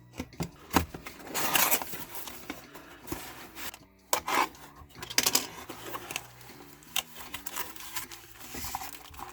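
Cardboard figure box being opened and unpacked by hand: cardboard rubbing and scraping as the flaps and insert are pulled, with scattered sharp clicks and taps. The longest rubbing spell comes about a second and a half in.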